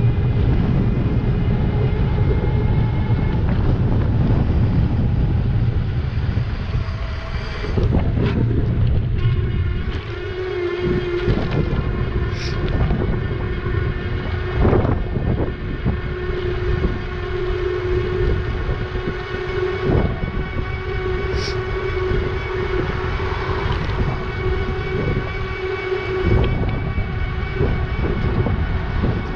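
Electric bike motor whining at a steady pitch under way, with wind rushing over the microphone, heaviest in the first third. A few sharp knocks stand out along the way.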